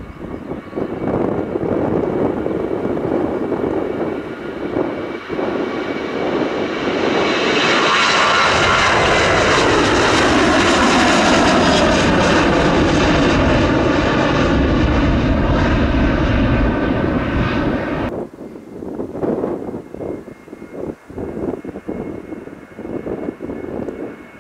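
Heavy wide-body jet airliner taking off and passing by. Its engine noise builds to a peak in the middle, with a whine of fan tones that slides down in pitch as it goes past, then cuts off suddenly about 18 seconds in, leaving fainter, uneven noise.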